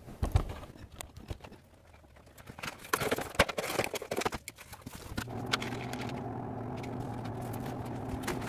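Cardboard shipping box being torn open and handled, heard sped up: quick irregular scraping, rustling and knocks. About five seconds in, these give way to a steady low hum.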